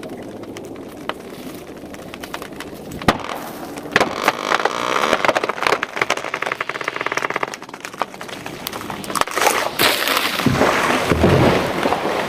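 Sharp cracks and snaps, then a small engine running through the middle, and a low rumbling crash near the end, as a tree being cut down with a chainsaw gives way and falls.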